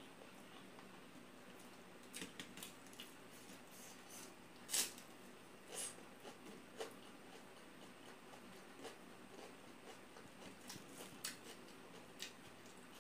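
Faint mukbang eating sounds: chewing, lip smacks and small mouth clicks as rice is eaten by hand, with scattered sharp clicks, the loudest about five seconds in.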